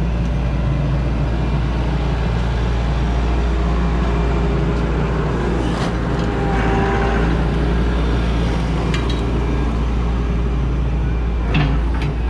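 Tracked excavator's diesel engine running steadily while the boom and bucket are worked, with a higher whine that comes in about halfway through and a few sharp knocks near the end.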